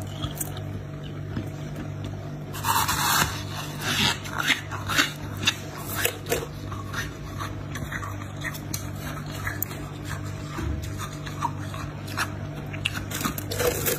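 Packed freezer frost crunching and scraping as it is broken off and squeezed by hand, with a loud crackly burst a few seconds in and a run of sharp crunches after it, thinning out later. A steady low hum runs underneath.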